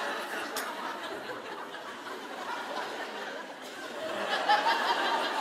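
Theatre audience laughing. It eases off a little, then swells again about four seconds in.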